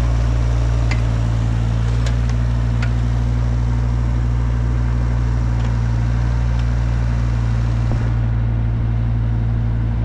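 Diesel engine of an excavator running steadily as it digs, with a few light knocks in the first few seconds.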